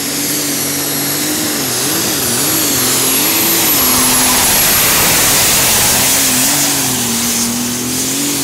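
International 1066 superstock pulling tractor running at full power under load as it drags the weight sled. The engine note dips and climbs several times between about two and four seconds in and again near the end, with a high whine over it for the first half.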